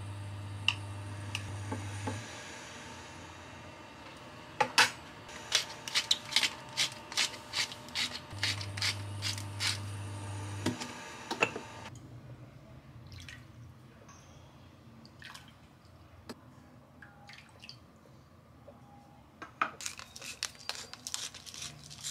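Cooking sounds at a ceramic pot of bok choy soup on a cooktop: a low hum that comes and goes twice, and a quick run of clinks and knocks against the pot, about two a second. Then the soup is poured and drips into a glass bowl, with more clinks near the end.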